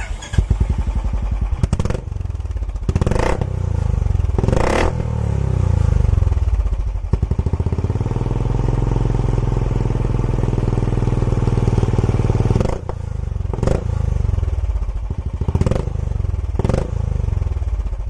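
Royal Enfield Classic 350 BS6's single-cylinder engine running through an aftermarket long-barrel short-bottle silencer. It is blipped sharply several times, held at higher revs for about five seconds, then drops back and is blipped again. The exhaust note has a lot of thump and little bass.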